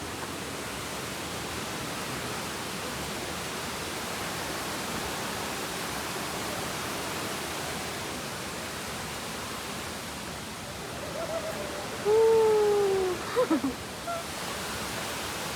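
A steady rushing noise throughout. About twelve seconds in, a loud call slides down in pitch for about a second, followed by two or three short calls.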